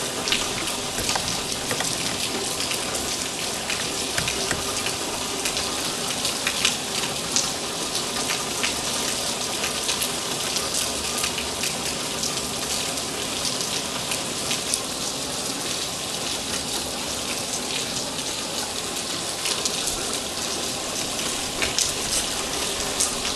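Steady rain: an even hiss with many separate drops ticking sharply on a surface.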